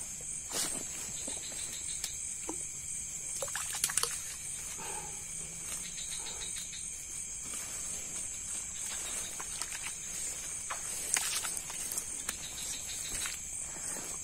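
Night insect chorus: a steady, high-pitched trilling drone. Scattered sharp clicks and rustles come from close by, the loudest about four seconds in and again about eleven seconds in.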